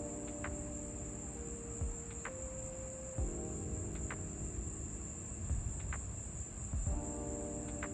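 Night insects chirring in one steady, unbroken high-pitched drone. Faint sustained low tones underneath shift in pitch in steps, with a few light ticks.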